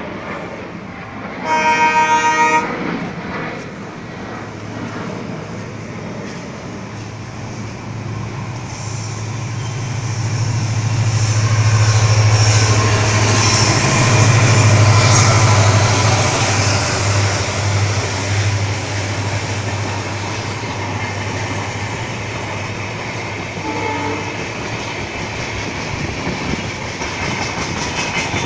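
WDP4D diesel locomotive (EMD two-stroke engine) sounding one short horn blast about a second and a half in, then passing with its engine's low drone swelling to its loudest about halfway through and easing off, under the rumble and clatter of LHB coaches on the rails.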